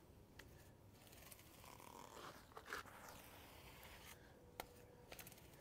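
Faint scraping of a grout float pushing cement grout into the joints of mosaic pool tiles, with a sharp click near the end.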